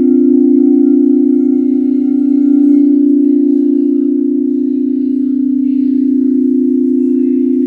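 Crystal singing bowl sounding a steady, sustained low hum that fades slowly, with faint higher overtones above it.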